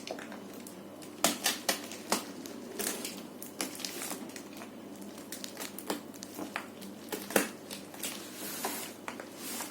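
Shipping package being unwrapped by hand: wrapping crinkling and tearing, with irregular sharp cracks and clicks.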